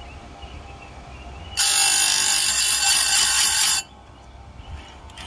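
Electric chainsaw-chain grinder motor humming, then its abrasive wheel grinds a chain tooth for about two seconds, a loud harsh hiss of stone on steel starting about a second and a half in and cutting off suddenly.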